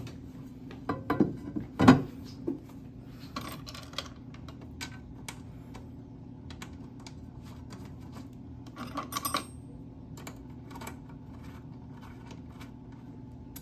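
Scattered metallic clinks and knocks as the cover plate over a walk-behind floor scrubber's vacuum motor is set back in place and its screws are handled. There is a sharper knock about two seconds in and a brief ringing clatter about nine seconds in, over a steady low hum.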